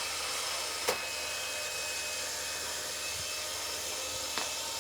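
Robot vacuum cleaner running with a steady whir as it sweeps the floor. Two short knocks break through, one about a second in and a fainter one near the end.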